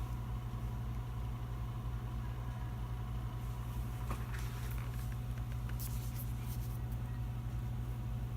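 Steady low hum, with a few faint light clicks and taps about midway.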